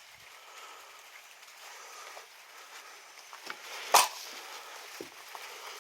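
A single sharp crack about four seconds in, with a few fainter knocks around it, over a steady faint outdoor hiss.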